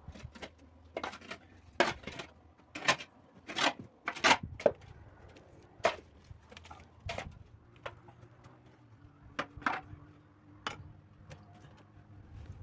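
A string of irregular sharp knocks and clacks, like objects being handled and set down, loudest in the middle, over a faint low hum.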